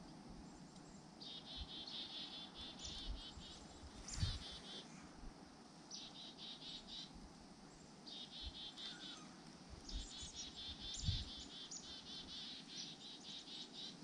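Rapid trills of high chirping notes from a small animal, repeated every second or two. A dull thump comes about four seconds in and another near the end.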